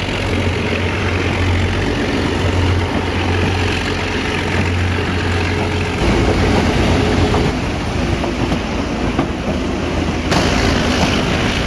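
White Pass & Yukon Route passenger train heard from on board while moving: a steady running noise of wheels on rails, with the low rumble of its green-and-yellow diesel locomotives. The low drone shifts about halfway through.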